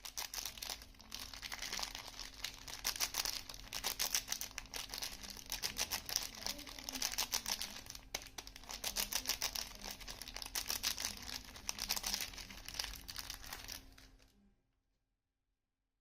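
Soap packaging crinkling and rustling as it is unwrapped by hand, in a dense, continuous crackle that stops about fourteen seconds in.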